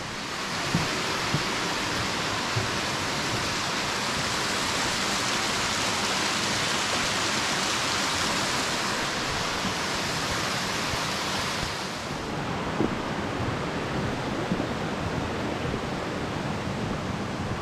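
Rushing water of a rocky mountain stream, a steady hiss that drops and thins about twelve seconds in. A few soft knocks sound over it.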